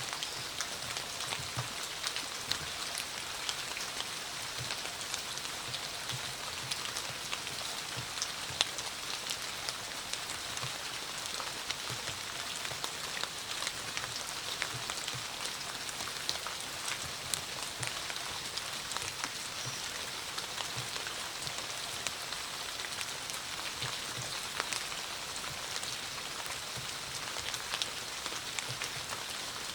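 Steady rainfall: a continuous hiss of rain with many individual drops striking surfaces in quick, irregular clicks.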